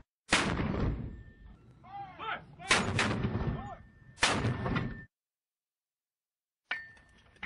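Battle sound effects: three heavy gunshot or artillery blasts, each with a long rumbling tail, with rising-and-falling cries between them. The sound cuts off abruptly about five seconds in.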